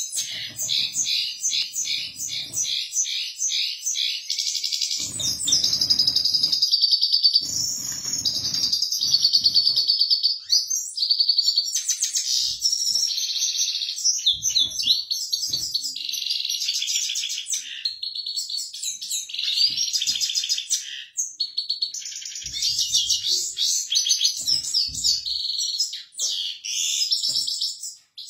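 Caged goldfinch in full song: a long, nearly unbroken run of fast twittering phrases and trills, with a couple of short pauses.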